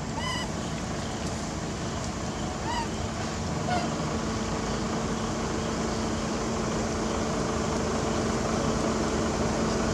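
Three short, high, rise-and-fall squeaks from young long-tailed macaques in the first four seconds, over a steady background hiss with a low hum.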